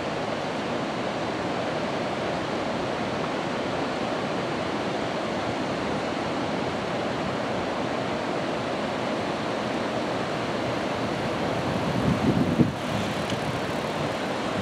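Steady rushing of water pouring over the river dam. Brief wind buffets hit the microphone about twelve seconds in.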